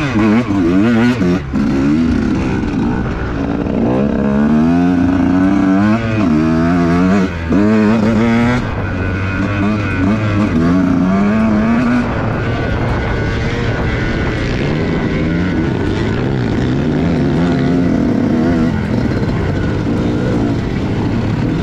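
KTM enduro dirt bike's engine under way, the revs rising and falling again and again with throttle and gear changes. After about twelve seconds it runs steadier, with a few more swings near the end.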